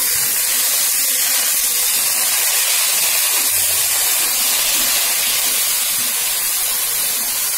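Pumpkin shoots, potato and jackfruit seeds frying in hot oil in a karahi while being stirred with a spatula: a loud, steady sizzling hiss.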